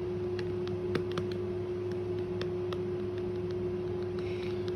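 Steady background hum holding one constant tone, with a few faint clicks scattered through it.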